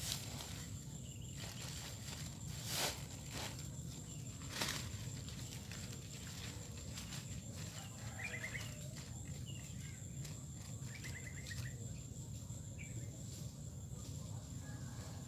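Footsteps crunching and rustling through dry leaf litter, with a few sharp crackles in the first five seconds. Birds chirp in short rapid trills in the middle, over a thin steady high-pitched tone.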